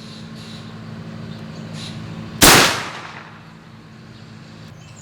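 A single shot from an AirForce Texan .45-calibre big-bore pre-charged air rifle firing a 330-grain ballistic-tip bullet: one sharp, loud report about two and a half seconds in that dies away over about half a second.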